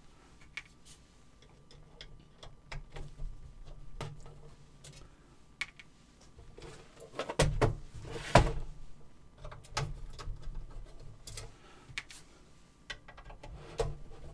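Handling noise from taking apart a floppy drive's metal and plastic enclosure: scattered small clicks and taps of a screwdriver and parts, with a louder knock and clatter about eight seconds in as the chassis is lifted and turned, and more screwdriver clicks near the end.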